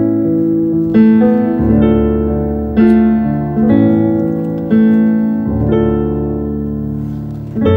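Keyboard playing a slow, improvised piano intro: sustained chords over a bass line, a new chord struck about every second.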